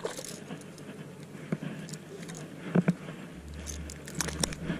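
Handling noise as a just-landed fish and its lure are gripped by hand: scattered clicks and light scrapes, with two louder knocks a little before three seconds in. A low rumble comes in about two-thirds of the way through.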